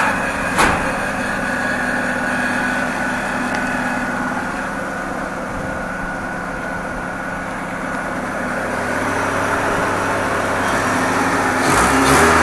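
Hyundai Tiburon's DOHC 16-valve four-cylinder engine idling steadily, just after its timing belt was replaced. A single sharp click about half a second in.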